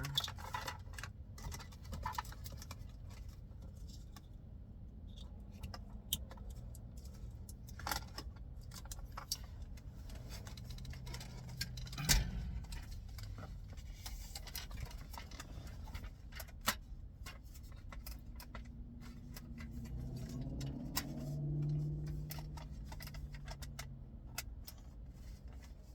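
Scattered clicks and light rattles of plastic dash parts and wire-harness connectors being handled during a car radio swap, with a sharper knock about twelve seconds in and another a few seconds later.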